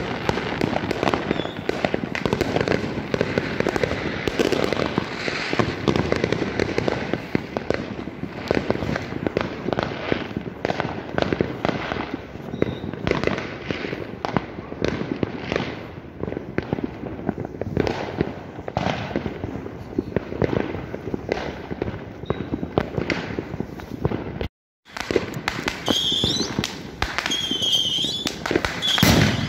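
Many New Year fireworks and firecrackers going off at once, a dense, continuous rattle of bangs and crackles. The sound cuts out for a split second near the end, then high wavering whistles rise over the bangs.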